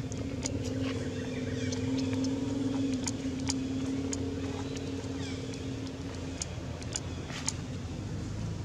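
A motor engine droning steadily at one pitch, stopping about six seconds in, over a low background hum, with a few short sharp clicks.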